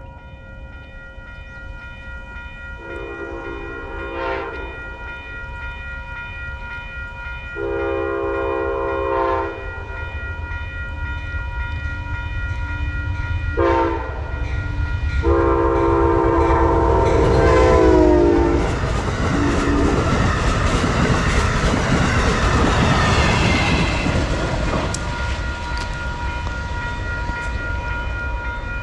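Amtrak P42DC diesel locomotive's horn sounding the grade-crossing signal, two long blasts, a short one and a long one, the last falling in pitch as it passes. Then the Downeaster train rumbles by with wheel clatter on the rails.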